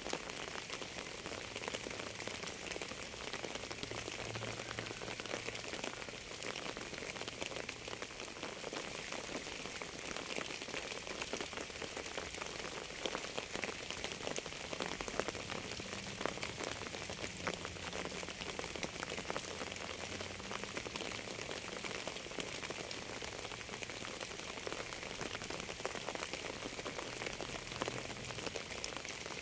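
Steady rain falling, an even hiss dense with small, sharp drop ticks.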